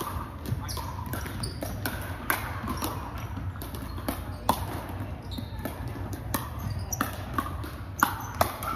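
Pickleball paddles striking the hard plastic ball, sharp pops coming irregularly about once or twice a second, mixed with hits from neighbouring courts. A steady low hum runs underneath.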